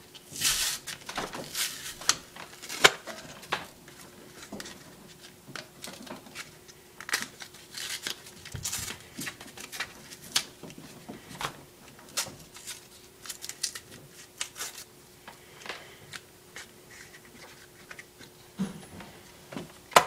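Retail packaging of a set of aluminum RC shock caps being opened by hand: irregular crinkling, tearing and clicking of plastic and card, over a faint steady hum.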